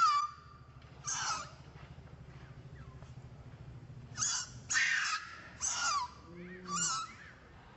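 Baby macaque crying in short, shrill distress screams, about six of them, most of them bunched together in the second half.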